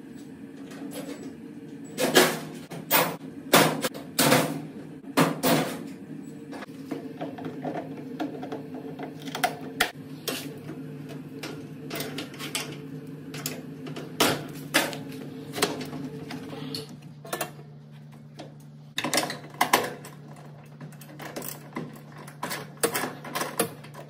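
Repeated sharp metal clanks and knocks of tools and parts being handled during work on a washing machine, irregular, over a steady low hum whose higher part drops out about two thirds of the way through.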